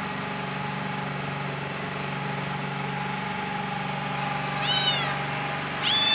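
A cat meowing: one short meow about four and a half seconds in, then a louder, longer meow starting just before the end, its pitch falling. A steady low hum runs underneath.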